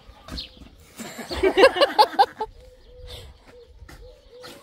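A llama nicknamed 'Sniper' spitting at a man over its fence: a short hiss about a second in, then a loud run of quick pulsed sounds for about a second and a half.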